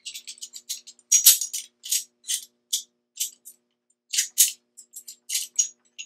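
Black Diamond Gridlock aluminium screw-gate carabiner clinking and rattling against a TAZ LOV3 rope device and harness hardware as it is clipped in: an irregular string of short metallic clicks and jingles, loudest a little over a second in and again around four seconds in.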